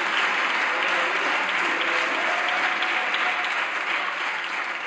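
Applause from deputies in a large parliamentary chamber: steady clapping from many hands that tapers off near the end.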